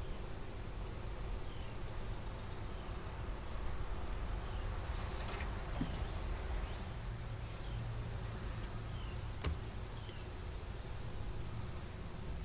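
Honeybees humming steadily over an open hive box; this colony is queenless. Faint high chirps repeat in the background, and there is one sharp click about three-quarters of the way through.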